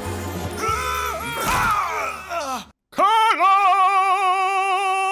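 Cartoon soundtrack: music with swooping voice-like sound effects and a crash about one and a half seconds in, which cuts off suddenly. A moment later a single voice holds one long wavering note for about two and a half seconds.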